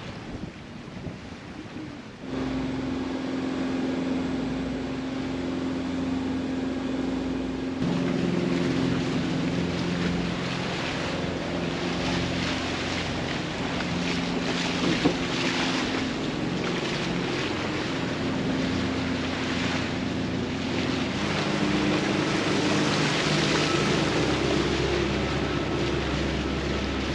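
A sailboat's engine running steadily while motor-sailing, with wind on the microphone and water rushing past the hull. The engine hum comes in about two seconds in and shifts in pitch a couple of times.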